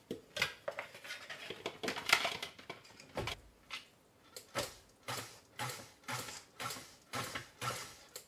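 Dry flour mix is tipped from a bowl into a stand mixer, then the stand mixer is pulsed on and off in short bursts, about two or three a second, its beater blade working a stiff cookie dough.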